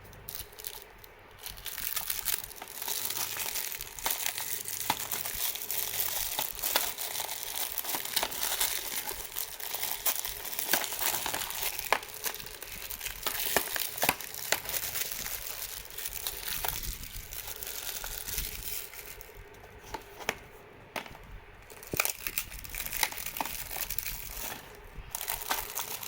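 Plastic packaging on a Blu-ray case being handled and unwrapped: continuous crinkling and tearing, dotted with sharp crackles and clicks, easing off briefly a little after two-thirds of the way through.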